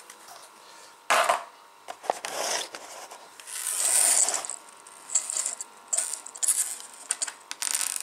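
Small plastic bag crinkling in the hands in several short rustles, then small plastic and metal kit parts clicking against the tabletop as they are handled.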